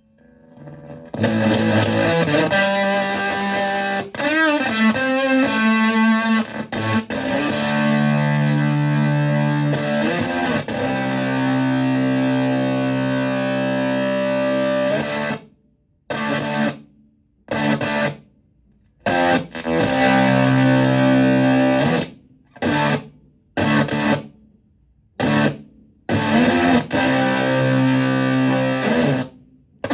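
Stratocaster electric guitar played through a reproduction Tone Bender MKI fuzz pedal into a Twin Reverb-style amp, giving a thick, fuzzy distorted tone. Held notes with bends give way, at about the midpoint, to short chopped notes with silent gaps between them, then held notes return near the end.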